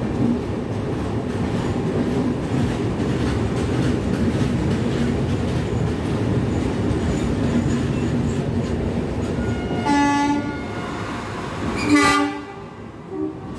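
LHB passenger coaches of a departing express rolling past, a steady noise of wheels on rail. About ten seconds in a train horn sounds in two short blasts, two seconds apart, the second one louder.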